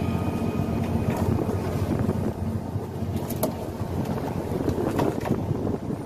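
Steady low hum of a fishing boat's engine, with wind on the microphone and a few faint clicks about halfway through and near the end.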